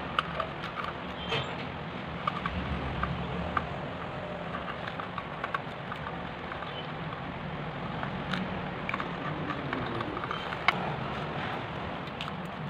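Small, irregular clicks and taps of a pointed tool and fingers working around the plastic frame of an Oppo A3s phone, with one sharper click near the end, over a steady low background hum.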